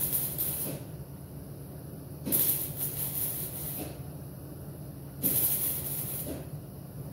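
MIG welder stitch-welding a thin sheet-metal patch panel, in three short bursts of arc crackle about a second and a half each, with a pause between. A steady low hum runs underneath.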